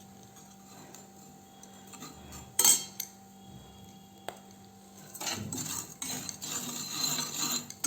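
A metal spoon knocks sharply against a pan, with a couple of lighter clicks after it. From about five seconds in it scrapes and stirs steadily through crushed borax being dry-roasted until it puffs up like popcorn.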